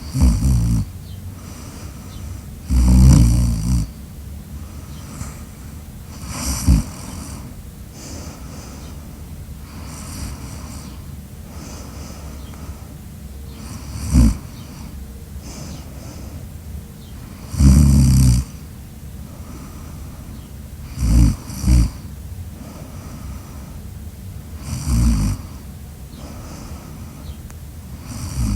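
Loud snoring, one snore about every three to four seconds, some stronger than others.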